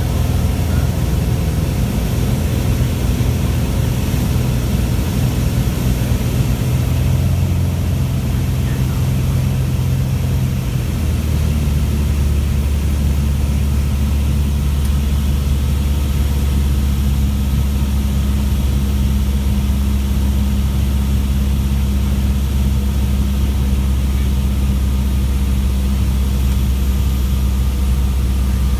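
Piper Turbo Arrow's turbocharged engine and propeller, heard from inside the cabin: a steady drone in flight. About eleven seconds in the engine note shifts lower and holds steady.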